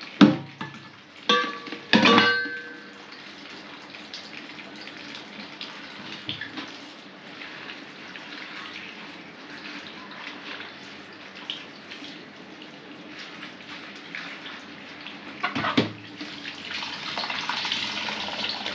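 Water running from a tap into a tub as cowpea leaves are washed, a steady splashing hiss that gets louder near the end. A few ringing clanks sound in the first two seconds and again about 16 seconds in.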